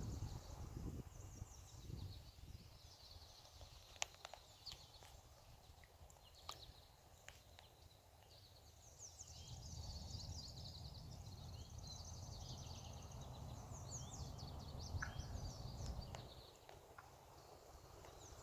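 Faint bird calls: many short high chirps through much of it, with a few sharp clicks and a low rumble in the middle stretch.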